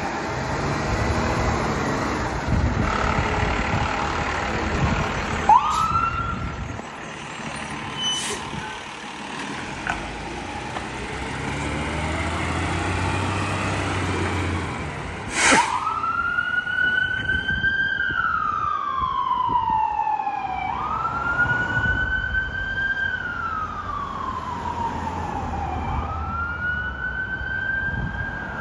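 2013 Pierce Arrow XT fire engine pulling out and driving off, its engine running, with a brief siren whoop about five seconds in and a short sharp blast around fifteen seconds. Its siren then wails, rising quickly and falling slowly, about once every five seconds.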